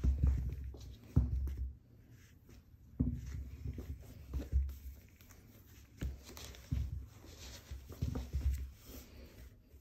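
Irregular soft thumps and scuffs of a basenji puppy pawing and mouthing small tennis balls on a rug, a bump every second or two.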